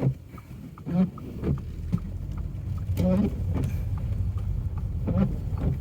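Low, steady rumble of a car driving, heard from inside the cabin, growing louder about two seconds in. Three brief vocal sounds are heard over it.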